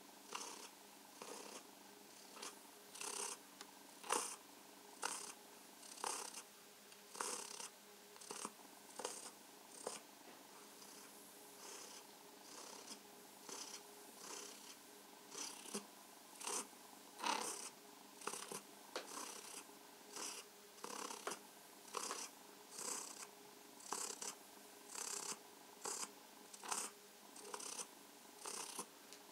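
Domestic cat purring contentedly while being stroked, the purr swelling in a steady rhythm about once a second.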